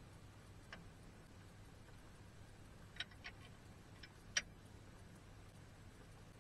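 A few short, sharp clicks and taps of metal as a wooden bowl blank is seated and clamped in a lathe chuck. Two come close together about three seconds in and the loudest about four and a half seconds in, over a faint low hum.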